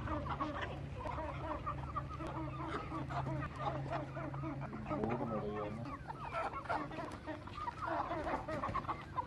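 A flock of young Aseel chickens clucking and cheeping continuously, many short calls overlapping.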